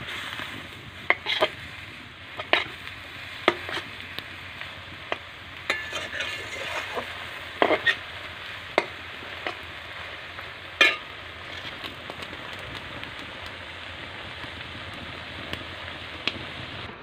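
Bottle gourd stems in mustard paste sizzling in a wok while a metal spatula stirs them, with sharp scrapes and knocks of the spatula on the pan through the first eleven seconds or so, then mostly a steady sizzle. The last of the liquid is being cooked off.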